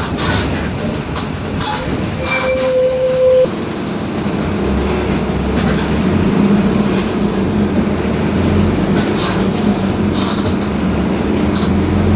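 Mercedes-Benz OF-1721 city bus driving, a steady drivetrain drone with rattles over it, carrying the growl of its differential. About two seconds in, a steady higher tone sounds for about a second and stops abruptly.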